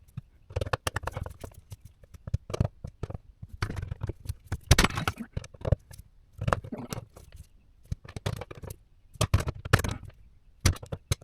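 Irregular clicks, knocks and short scrapes of hands-on work on a dishwasher's parts, with no steady rhythm.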